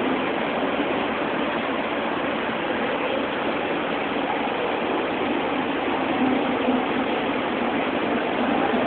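Steady, even background din of an aquarium hall, with no distinct events.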